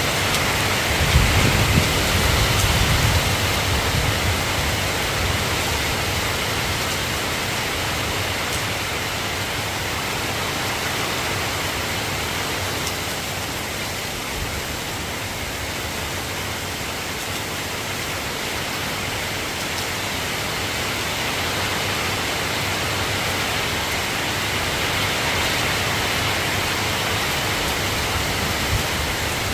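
Steady soft rain falling, an even hiss, with a low rumble swelling for a few seconds near the start.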